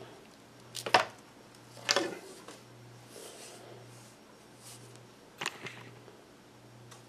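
Handling knocks as canned goods and a glass sign are moved about on a glass-topped table: sharp knocks about one and two seconds in and another near five and a half seconds, with light rubbing between them. A faint low hum runs underneath.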